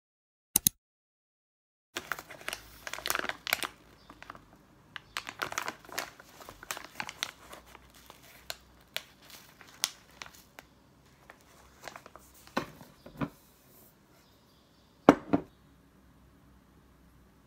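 A foil-lined bag of ground coffee crinkling and rustling as it is handled and opened, in irregular crackles and clicks, while coffee is put into a paper filter. Two sharp knocks near the end.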